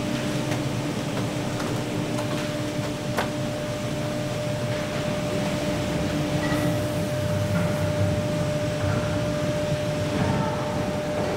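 Steady rumble and hum of slaughterhouse processing-line machinery, with a constant high tone and a sharp knock about three seconds in.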